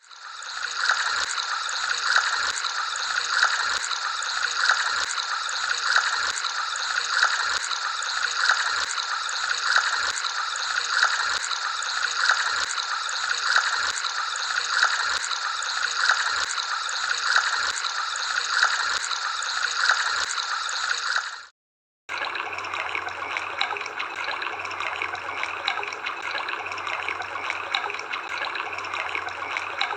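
River water flowing and gurgling, with an even swell a little more than once a second. About two-thirds of the way through it cuts out briefly and a different, steadier stretch of running water follows.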